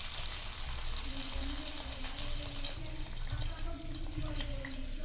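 A little water running and being poured into a pan of browned, spiced chicken.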